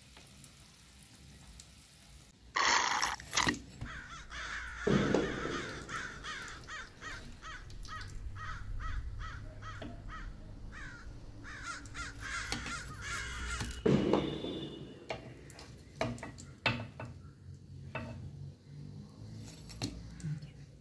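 Crows cawing again and again, the loudest caw about three seconds in.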